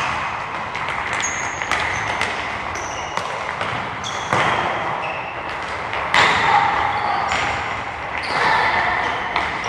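Youth football training: balls being kicked and bouncing, with many sharp knocks throughout, brief high squeaks, and children's voices in the background.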